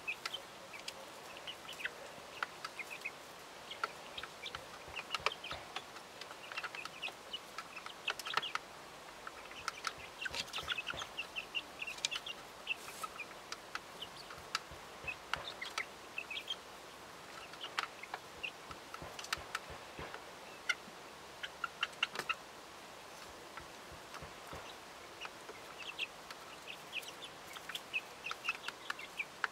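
Young hens clucking and peeping softly while feeding, with many sharp irregular clicks as their beaks peck at food in a plastic tray made from an old fridge door shelf.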